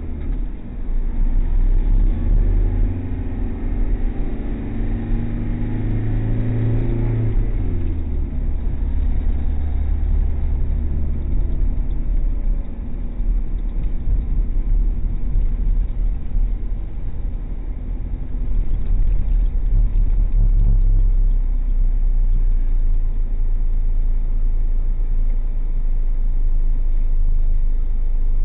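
Car engine and tyre rumble heard from inside the moving car's cabin. The engine note climbs over the first seven seconds or so, then drops and settles into a steady low rumble.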